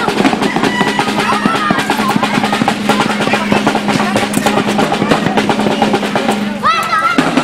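Rapid drumming like a drum roll over a steady low held note, with high voices calling out loudly near the end.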